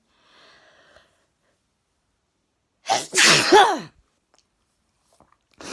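A woman sneezing once, loudly, about three seconds in: a quick catch of breath, then the sneeze itself, lasting about a second, one of a fit of allergy sneezes.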